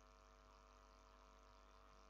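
Near silence: a faint steady electrical hum.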